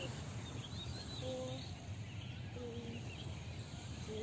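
Outdoor ambience: many small birds chirping over a steady low rumble, with a short low call repeating about every second and a half.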